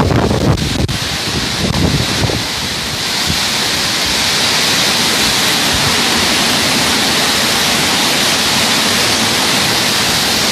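Heavy storm rain pouring down as a steady hiss, with gusts of wind buffeting the microphone for the first two seconds or so.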